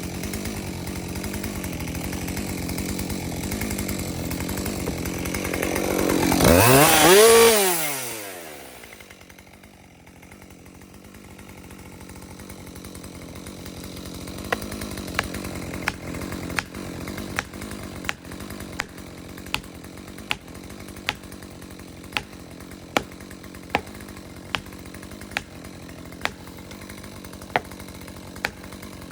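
Two-stroke chainsaw running, revved hard to full throttle about seven seconds in and dropping straight back, its pitch rising and falling. Later the saw runs quietly while sharp knocks come evenly, a little over one a second.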